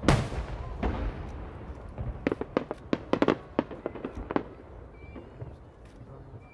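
Aerial fireworks bursting: one loud bang at the start trails off in a fading crackle, then a quick run of about ten sharp bangs follows between two and four and a half seconds in, and the sound dies away near the end.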